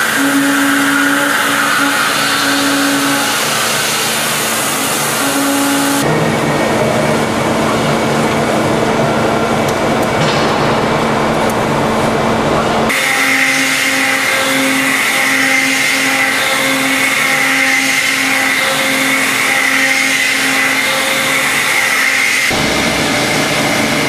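Matsuura 5-axis CNC machining centre milling a metal manifold: a steady spindle and cutting whine over a hiss. The pitch and tone change abruptly about 6, 13 and 22 seconds in, as one cutting operation gives way to the next.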